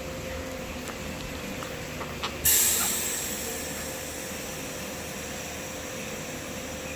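Drum-washing machine running with a steady hum; about two and a half seconds in, just after a click, a spray jet starts suddenly with a loud hiss that eases off to a steady, quieter hiss.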